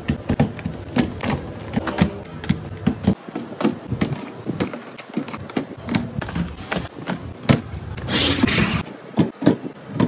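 Small cardboard Pocky boxes knocked, tapped and set down one after another in a metal wire basket, making many short clicks and knocks, with a longer scrape about eight seconds in as a box slides into place.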